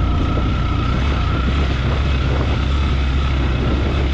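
Motorcycle engine running steadily while riding, with even rushing wind noise over it.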